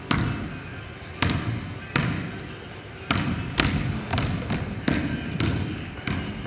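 Basketball bouncing on a hardwood gym floor, about seven sharp bounces at an uneven pace, each with a short echo from the hall.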